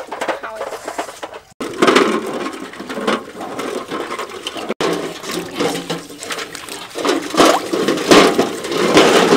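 Water sloshing and splashing in a steel basin as a large batch of duck eggs is scrubbed by hand with scouring pads, with eggs knocking against one another and the basin.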